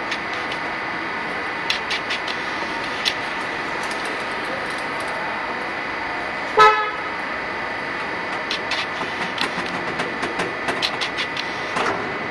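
Steady hum of the vacuum homogenizer mixer running, with a thin high whine and scattered light clicks. A vehicle horn toots once, briefly, about halfway through, the loudest sound.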